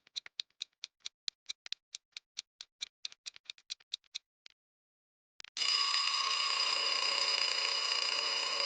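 Countdown timer sound effect: quick clock ticks, about five a second, for roughly four and a half seconds, then after a short pause an alarm rings steadily for about three seconds and cuts off, signalling that time is up.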